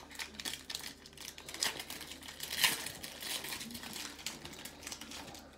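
Foil baseball card pack wrapper crinkling and tearing as it is pulled open by hand: an irregular run of crackles, loudest about two and a half seconds in.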